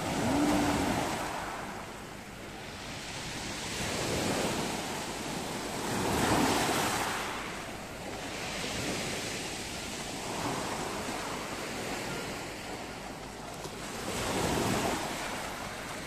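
Black Sea surf: small waves breaking and washing up a pebble beach. The noise swells and falls away five times, with a rush every few seconds.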